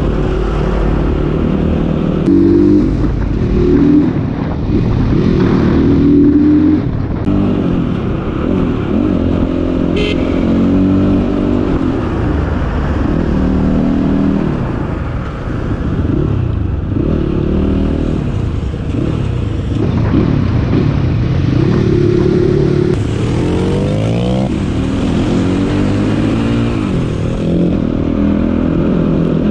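Crossfire 250 cc dirt bike engine running on an off-road ride, its pitch rising and falling every second or two as the throttle opens and closes. A short sharp tick about ten seconds in.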